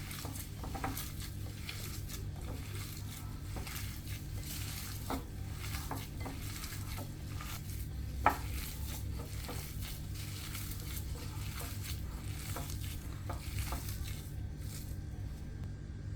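Stirring and scraping with a utensil in a pot or bowl: scattered clicks and knocks, one sharper knock about eight seconds in, over a steady low hum.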